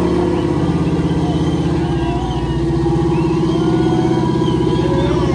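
Off-road vehicle engines running steadily under load, a low pulsing engine note, as one rig tows another up a steep rock climb on a rope. Faint crowd voices underneath.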